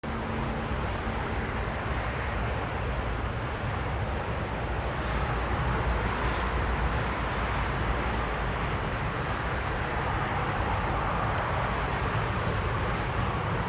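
Airbus A320-232's IAE V2500 jet engines heard at a distance on approach: a steady rumble that slowly grows a little louder.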